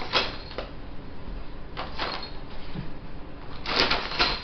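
Gift wrapping paper crinkling and rustling as a baby handles a wrapped present, in a few short bursts, the longest near the end.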